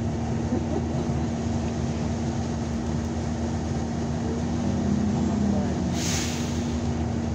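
Cabin noise inside a NABI 60-BRT articulated bus under way: a steady drone of engine and road with a constant hum. About six seconds in there is a short, sharp hiss.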